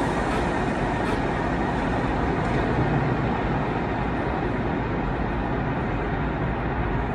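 Loud, steady roar from a video-art installation's soundtrack of fire and splashing water, played over gallery speakers. It cuts off suddenly at the end.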